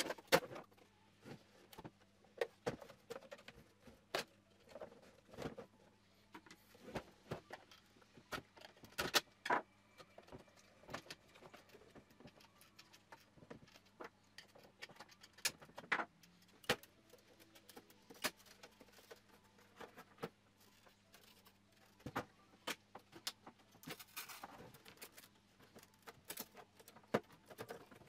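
Irregular clicks, taps and knocks of hard plastic Volvo XC60 headlight parts being handled, pried and set down on a bench as the lens, housing and trim are worked apart.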